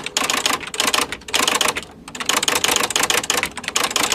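Rapid mechanical clicking and clattering, like typewriter keys, in two long runs with a short lull about two seconds in.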